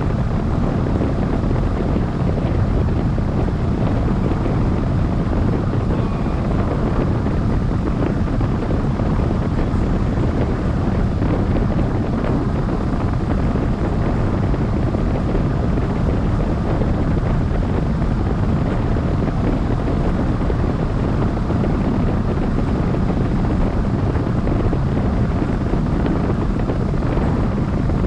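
Steady, loud rush of wind buffeting the microphone of a camera mounted on a hang glider's wing in flight.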